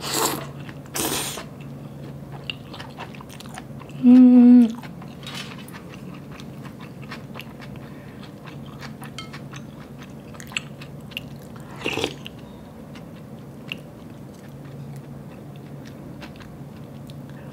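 Close-up eating sounds of cold soba noodle soup: two loud slurps of noodles at the start, then steady chewing with small wet mouth clicks. A loud hummed 'mmm' comes about four seconds in, and another slurp about twelve seconds in.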